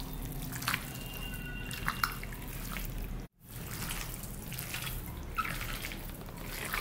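A hand squishing and turning chicken pieces in a wet marinade of corn flour, dry chilli powder and food colour in a glass bowl: soft wet squelching with a few faint clicks over a low hum. The sound cuts out briefly a little under halfway through.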